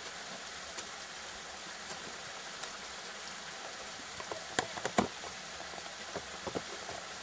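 Ice climber's ice tools and crampons striking the ice of a frozen icefall: a cluster of sharp knocks about two-thirds of the way through, the loudest two about half a second apart, with a few smaller ones shortly after, over a steady hiss.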